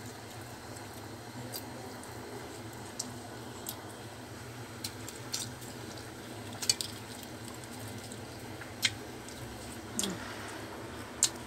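Scattered small clicks and soft wet squishes from a spoon scooping sambal and rice on the plates, about ten ticks in all, over a faint steady low hum.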